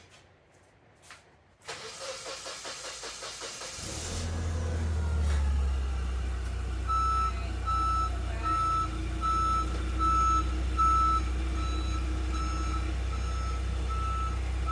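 VW Beetle's air-cooled flat-four engine cranking on the starter for about two seconds, then catching and running with a steady low rumble. From about halfway a steady repeating beep sounds about twice a second over the running engine.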